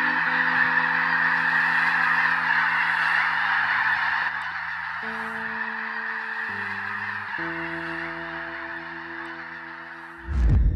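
A huge flock of snow geese and other geese calling all at once in a dense, continuous din as it takes flight, growing somewhat fainter after about four seconds as the birds fly off. Soft music with long held notes runs underneath, and near the end a sudden loud low boom cuts in.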